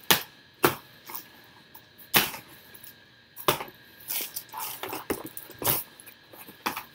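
A large cardboard box being opened by hand: several sharp, irregular cracks as its flaps are pulled back and bent, with scraping and rustling of cardboard in between.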